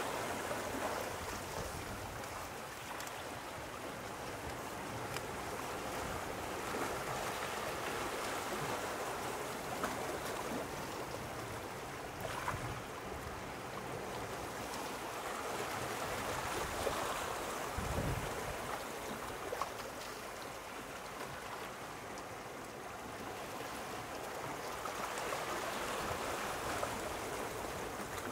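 Sea waves washing and lapping close by, the wash swelling and easing every several seconds, with a few small splashes. A brief low thump comes about eighteen seconds in.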